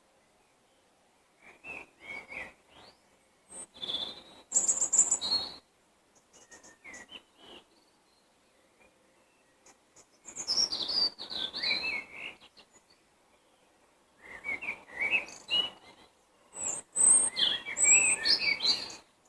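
Songbirds singing in spring, about six separate phrases of quick chirping notes with short quiet gaps between them.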